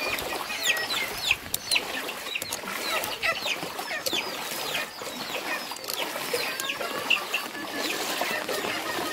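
Birds chirping: a rapid, irregular run of short, high calls, each falling in pitch, with a few faint clicks.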